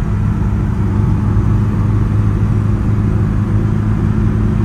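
1964 Morris Mini 850's four-cylinder engine and larger-bore exhaust running at a steady road speed, heard from inside the cabin, with a low, even drone and road noise.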